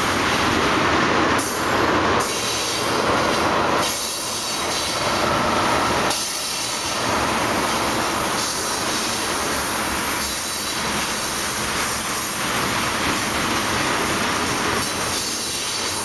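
Railroad tank cars of a freight train rolling steadily past, with a continuous noise of steel wheels running on the rails.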